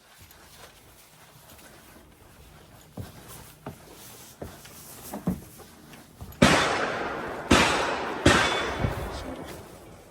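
Three gunshots about a second apart, each sharp with a long echoing tail, preceded by a few light knocks.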